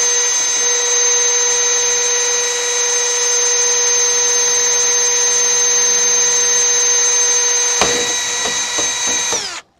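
Power drill running at a steady high speed as it bores through a plastic miter-saw fence. There is a sharp knock about eight seconds in, and near the end the trigger is released and the motor whine falls as it spins down.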